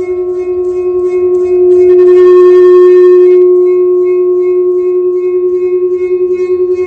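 A sustained ringing tone with a few higher overtones, wavering in level several times a second. It swells louder for a second or two, about two seconds in, with some added hiss.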